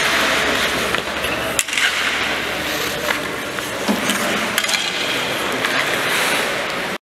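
Ice rink ambience: skate blades scraping on the ice with scattered clacks of hockey sticks, steady throughout and cutting off abruptly near the end.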